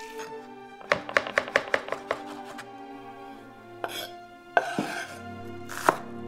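Kitchen knife chopping on a wooden cutting board: a quick run of about eight chops, then a knock and a few single chops near the end. Soft background music with held notes plays underneath.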